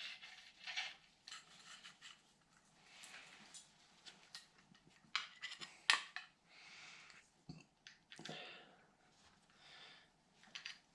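Faint, scattered clicks and light clinks with soft rustling, one sharper click about six seconds in, as hand tools and small metal engine parts are handled during disassembly.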